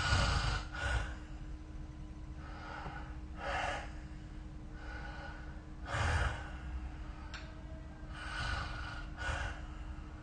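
A sleeping person snoring: a run of noisy breaths every second or two. The loudest rasping snores come at the start and about six seconds in. A faint steady hum runs underneath.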